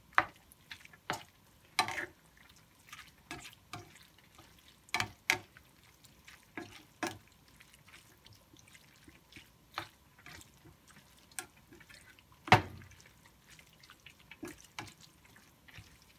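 Spatula stirring saucy shredded chicken in a stainless steel skillet: irregular knocks and scrapes of the spatula against the pan, the sharpest knock about three-quarters of the way through.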